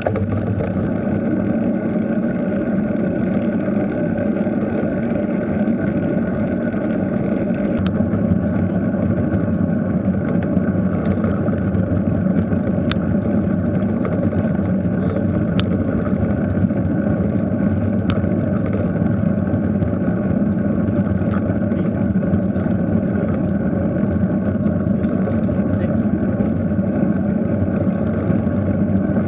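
Steady wind buffeting and tyre rumble picked up by a cyclist's action camera while riding at about 8 to 10 mph, with a few faint clicks.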